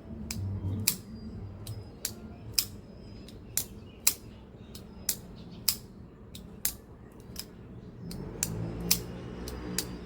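Trivisa Dolphin liner-lock folding pocket knife being flicked open and snapped shut over and over: about a dozen sharp metallic clicks, irregularly spaced, as the blade swings on its bronze-washer pivot and the liner lock engages.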